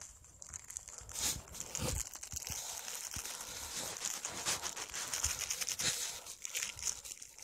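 Small plastic seasoning sachet crinkling and rustling in the hand as flavour-enhancer powder is shaken out of it into a cooking pan.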